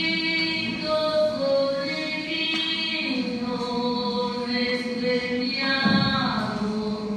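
A group of voices singing slowly, holding long drawn-out notes, with a brief thump about six seconds in.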